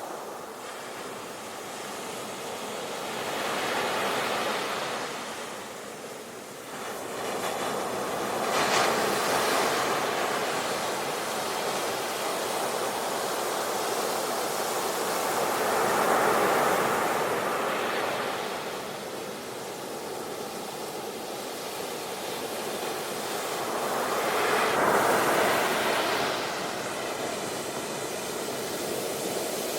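Sea waves surging in and falling back: a steady rush of surf that swells four times, about every five to nine seconds.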